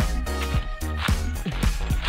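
Background music with a steady beat, a deep bass and repeated drum hits.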